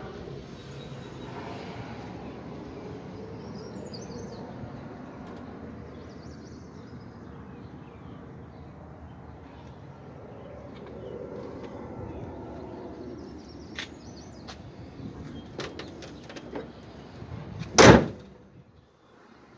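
Steel hood of a 1967 Ford Mustang slammed shut: one sharp, loud bang near the end, after a long stretch of steady low background noise.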